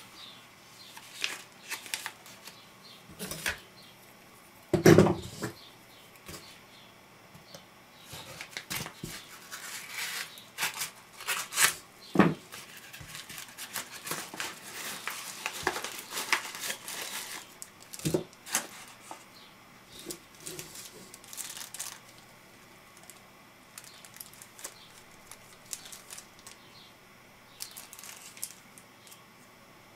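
Paper and plastic being handled, crinkled and torn as a yellow mailer envelope is opened, with scattered rustles and small taps. A heavier thump about five seconds in, and a longer stretch of crinkling and tearing in the middle. Lighter rustling of a small plastic bag near the end.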